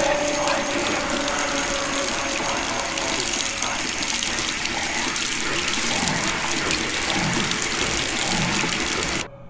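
Water running from a bathroom sink faucet into the basin as hands are washed under the stream, a steady hiss that cuts off abruptly near the end.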